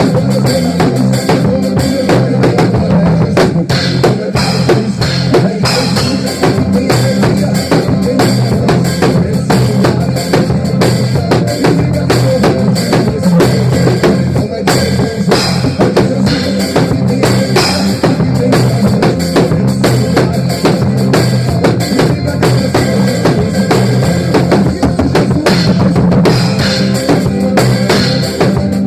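Drum kit played live along to a recorded song blasting from a large sound system, with steady kick drum, snare and rimshot hits over the track's bass line.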